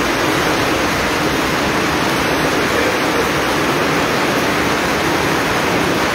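Heavy tropical downpour: a loud, steady rush of rain pouring down.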